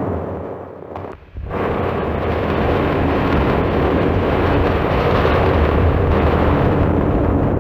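Designed ice dragon roar sound effect. One deep, rumbling roar dies away, and after a brief break a second long roar starts about a second and a half in and holds to the end.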